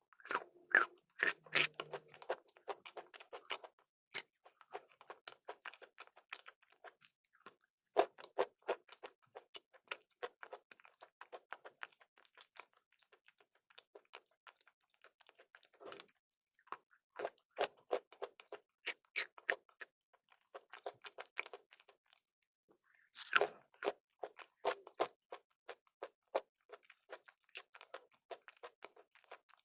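Chalk and clay being bitten and chewed close to the microphone: dense, crisp crunching clicks throughout, with harder bites at the start and about 23 seconds in.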